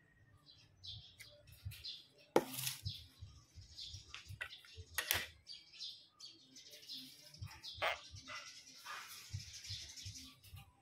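Hands grabbing and holding a tokay gecko: cloth rustling and scuffing with soft taps, and two sharp clicks about two and a half and five seconds in.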